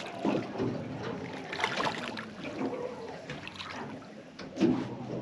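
Water slapping and lapping against the hull of a drifting fishing boat, with wind on the microphone, and one louder slap a little before the end.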